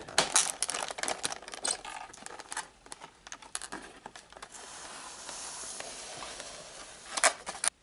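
Clear plastic blister packaging crinkling and crackling as it is pried open, with a run of clicks and snaps over the first few seconds. A steady rustling hiss follows, and a sharp crack comes near the end.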